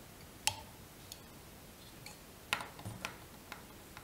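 Small metal fly-tying tools being handled: about half a dozen sharp clicks, the loudest about half a second and two and a half seconds in, with a few quicker ones near the end.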